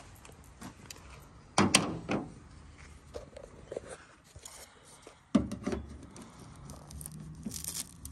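Scrapes and knocks of a plastic pry tool being worked against a stick-on chrome fender vent on a truck's body, with two louder knocks.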